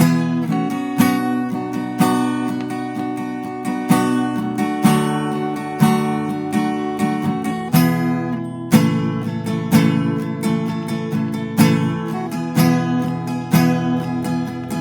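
Rogue RA-090 dreadnought acoustic guitar with its stock strings, strummed through a chord sequence, a chord struck about once a second.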